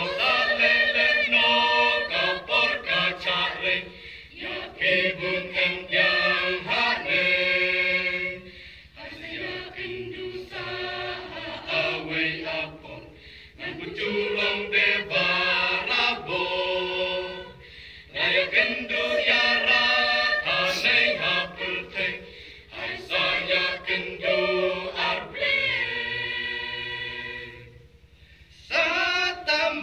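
A church choir singing a Khasi thanksgiving hymn in long phrases, with short pauses between them.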